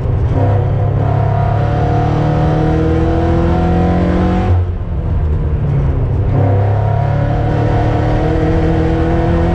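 Race car engine heard from inside the cockpit, running hard with its pitch slowly climbing. The pull breaks off about four and a half seconds in, then picks up and climbs again about a second and a half later.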